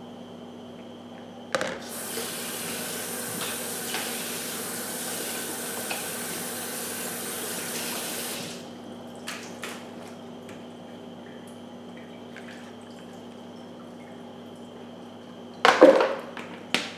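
Kitchen faucet running for about seven seconds, cold water pouring over chicken wings in a plastic colander as they are rinsed, then shut off abruptly. A few light clicks follow, and near the end comes a loud clatter of handling at the sink.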